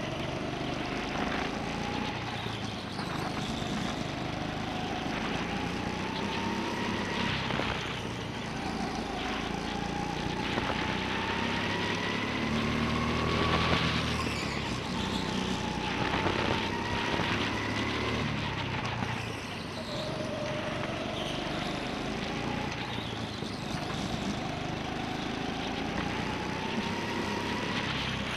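Go-kart engine heard from on board, revving as the kart laps the track: its whine climbs steadily along each straight, then falls away into the corners, most sharply about halfway through.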